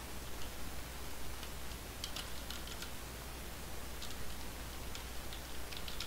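Computer keyboard typing: irregular keystroke clicks as a short title is typed, over a steady low hum.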